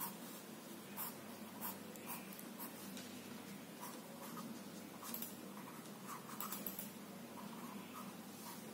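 Coloured pencil drawing on sketchbook paper: a series of short strokes at irregular intervals.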